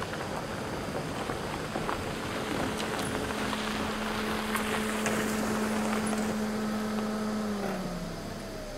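Toyota Matrix hatchback driving up a gravel road and pulling to a stop, tyres crunching on loose gravel with small stones clicking. Under the crunch runs a steady engine hum that drops in pitch near the end as the car slows and stops.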